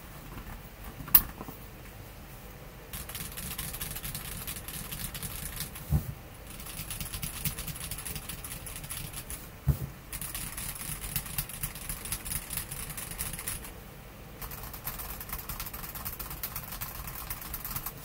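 Typing on a stock Feker Alice 80 mechanical keyboard with NK Silk Olivia linear switches and Cherry-profile PBT doubleshot keycaps: quiet, rapid key clacks in runs with short pauses. There is one sharp click about a second in, and a couple of low thumps around six and ten seconds.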